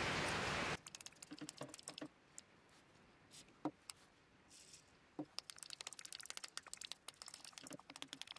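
Steady wind noise for under a second, cutting off abruptly. Then a run of small plastic clicks as the trigger switch of an old Bosch impact driver is worked back and forth by hand, with two louder clicks near the middle. The switch is being worked to scrub its corroded contacts after a soak in contact cleaner.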